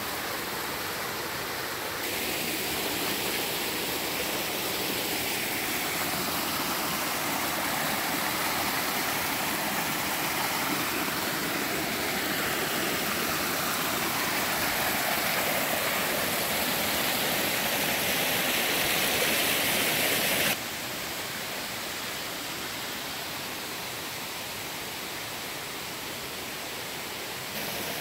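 Small waterfall pouring into a rock pool: a steady rush and splash of falling water. About two-thirds of the way through it drops suddenly to a softer, steady flow of a shallow rocky stream.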